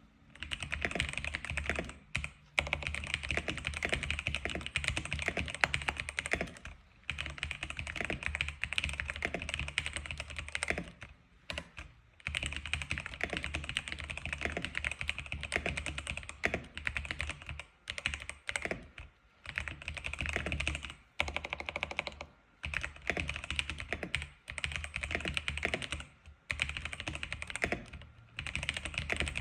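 Typing on an X87 keyboard: rapid, continuous key clicks in runs of a few seconds, broken by short pauses about every two to five seconds.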